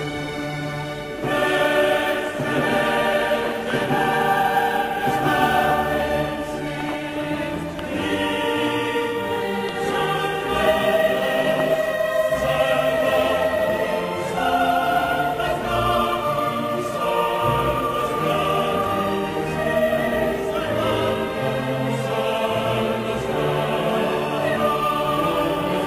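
Choral music: a choir singing long held chords, swelling about a second in.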